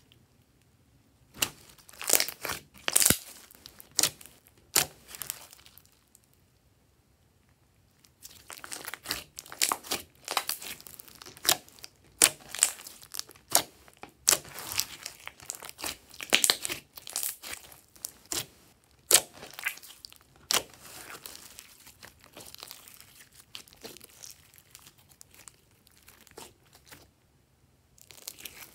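Glossy slime being squeezed and stretched by hand, giving irregular runs of sharp sticky pops and clicks, with a pause of about two seconds around six seconds in.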